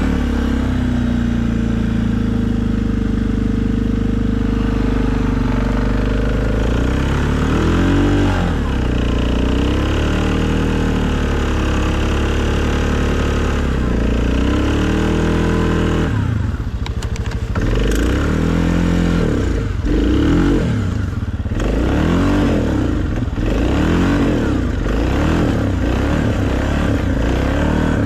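Suzuki KingQuad ATV engine running at a steady pace for several seconds, then revving up and down again and again, with two brief drops in power in the second half.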